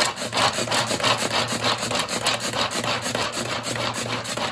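Handheld pull-cord food chopper being pulled over and over to chop garlic. Each pull gives a rasping whir as the cord spins the blades, in an even rhythm of about four strokes a second.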